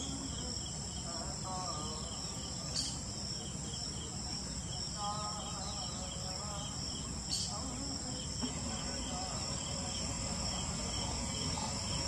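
Steady high-pitched insect chorus: a continuous trill with a faster pulsing layer beneath it, over a low background rumble. Two brief clicks come about three and seven seconds in.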